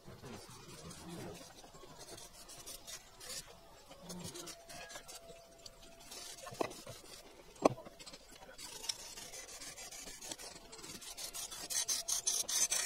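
Painted steel being scraped and rubbed by hand, taking the paint down to bare metal for a good ground contact. The strokes are faint and scratchy, with one sharp knock about halfway through and a quicker run of strokes near the end.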